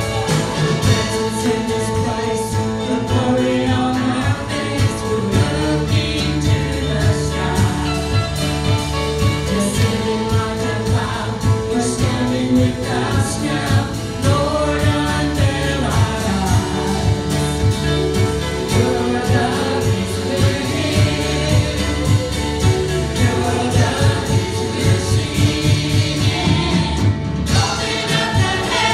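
Live worship band playing and singing a contemporary worship song: electric guitars, bass guitar, drum kit and keyboard with voices over a steady beat.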